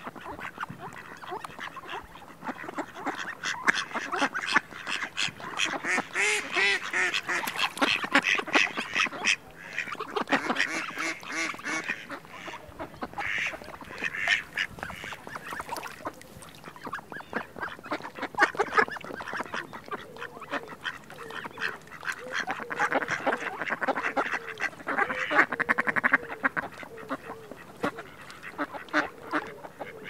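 Ducks calling in rapid runs of short quacks that come in bouts, with quieter gaps between.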